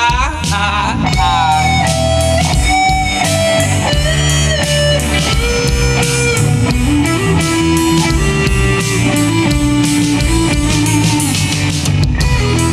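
Rock band playing an instrumental break: a lead electric guitar plays held notes that step and slide between pitches over drums, bass and a rhythm guitar.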